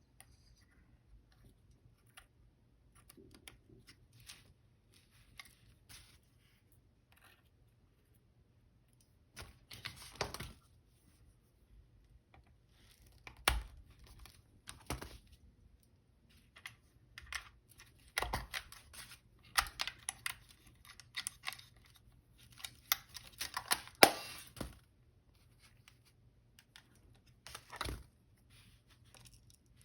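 Small metal parts and hand tools on a Canon A-1 camera being handled during reassembly: irregular light clicks, taps and scrapes, sparse at first and busier in the second half.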